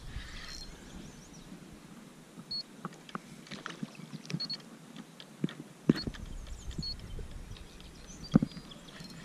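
Spinning reel and rod being worked while a smallmouth bass is played close in: scattered, irregular clicks and ticks from the reel, over a low rumble that comes and goes.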